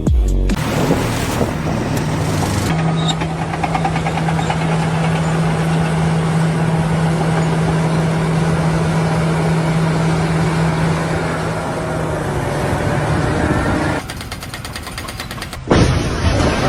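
Construction machinery: a steady engine or motor hum with clatter and noise, broken into several short segments by abrupt cuts. A quieter stretch of rapid clicking comes near the end.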